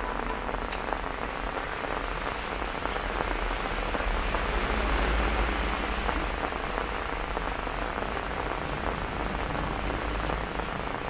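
Steady heavy rain during a storm, a continuous hiss that swells slightly partway through.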